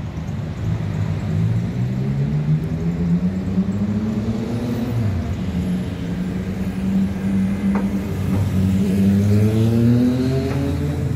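City road traffic: engines of passing vehicles running steadily, with several overlapping engine tones rising in pitch as vehicles accelerate, once in the first half and again near the end.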